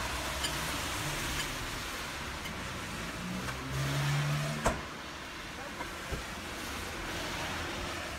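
Steady hiss of rain falling on a wet street. A low hum rises for a second or so past the middle and ends in one sharp click.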